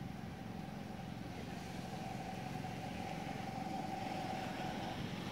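An engine running steadily, with a held whine that comes in about a second and a half in and fades near the end.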